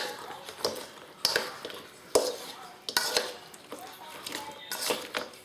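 A utensil clacking and scraping against a dish, several sharp knocks about a second apart.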